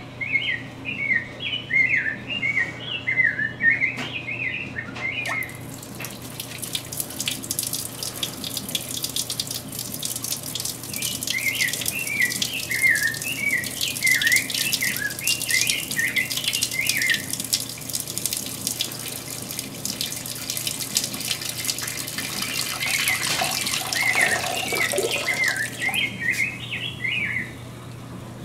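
A stream of liquid splashing steadily into the water of a toilet bowl, from about five seconds in until near the end: a person urinating. A bird twitters in three short runs of quick chirps, at the start, in the middle and near the end.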